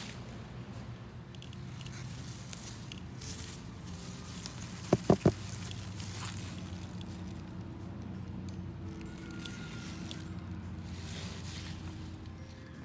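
Radishes being pulled from garden soil by hand: leaves rustling, soil scraping and crunching on and off over a steady low hum. About five seconds in come three quick, sharp knocks, the loudest sounds.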